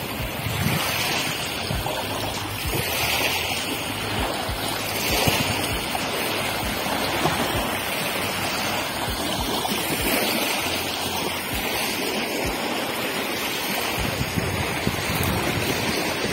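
Small river waves lapping on a pebble shore, the wash swelling and fading every couple of seconds, with wind buffeting the microphone.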